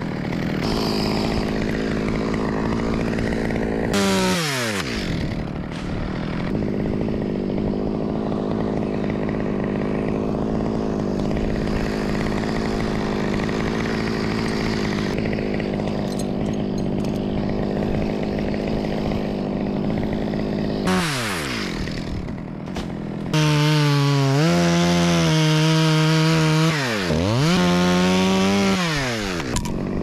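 Top-handle two-stroke chainsaw running under load as it cuts through a eucalyptus stem. The revs drop sharply about 4 s and 21 s in. From about 23 s it runs louder, dips once in a quick V of revs and tails off near the end.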